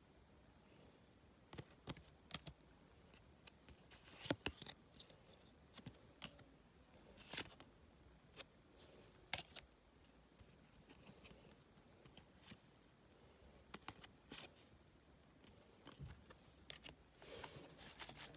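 Match Attax cardboard trading cards being handled: irregular light clicks and taps, roughly one every second, as cards are flicked through and set down.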